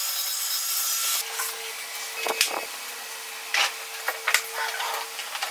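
Table saw cutting through a wooden board, which stops about a second in. Then several sharp wooden knocks and clatters as wood strips are handled and set down, over a steady hum.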